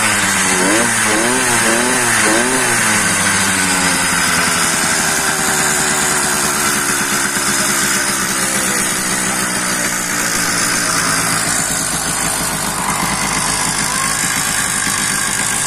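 Two-stroke bicycle engine kit on a motorized bicycle revving in a few quick throttle blips for the first couple of seconds. It then eases down and runs steadily at idle.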